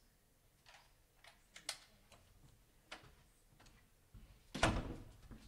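Scattered light clicks and knocks, then a louder rubbing thump about four and a half seconds in: handling noise from a battery being swapped in the recording gear.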